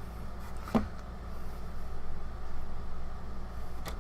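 Handling noise from fitting the CPU into its motherboard socket: a sharp click about a second in, a stretch of rustling, and another click near the end, over a steady low hum.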